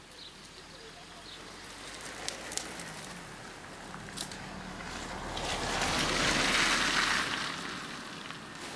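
Tyres hissing on a wet road as a vehicle passes, the hiss swelling to a peak about six to seven seconds in and then fading, with a few faint clicks earlier.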